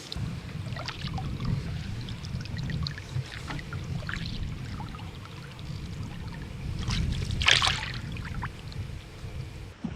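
Canoe paddle strokes in lake water: small splashes and drips against a steady low rumble of wind on the microphone, with a louder splash about seven and a half seconds in.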